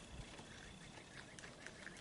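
Near silence, with a few faint small ticks and creaks from a mounting screw being turned into the wall by hand with a Phillips screwdriver.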